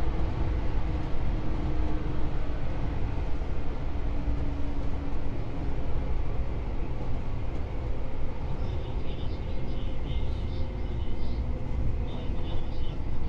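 JR 113 series electric train running, heard from aboard: a steady low rumble of wheels and traction motors. A gear hum sinks slightly in pitch and fades out about halfway through.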